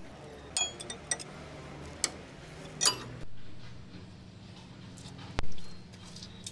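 Metal tools and parts clinking and knocking during differential work on a truck: scattered light clicks, with a sharp knock about five and a half seconds in, over a low steady hum.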